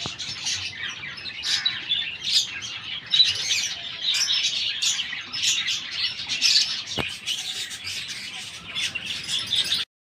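A flock of caged peach-faced lovebirds chattering, with a dense, continuous stream of high chirps and squeaks. There is a single sharp click about seven seconds in.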